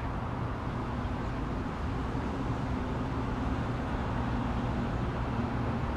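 Steady low mechanical drone with a faint hum.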